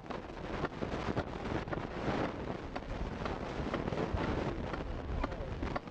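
Hand adze chopping into a wooden antelope-mask blank, about two sharp blows a second, over a steady background hiss.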